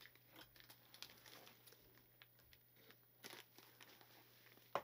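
Faint crinkling and rustling of a plastic kit package being cut open and handled, with scattered soft clicks; a sharper click comes near the end.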